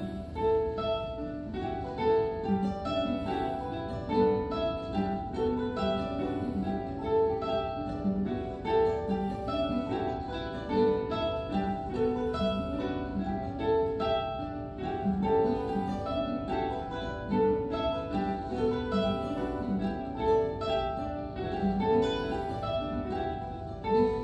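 A quartet of classical guitars playing short, repeated plucked notes in overlapping figures.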